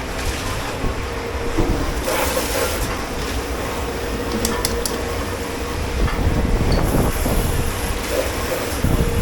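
Steady low rumble and constant hum of running kitchen machinery, with a few brief sharp clinks about four and a half seconds in.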